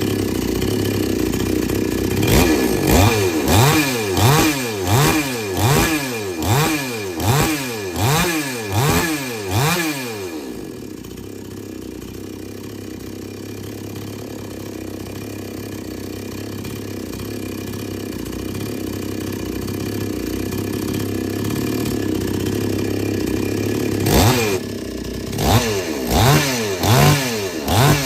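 Two-stroke petrol chainsaw engine running while the throttle is blipped over and over, about one and a half revs a second. It then drops back to a steady idle for a long stretch and starts revving again near the end. This is a test run after the carburetor's H and L mixture screws were set to three turns out.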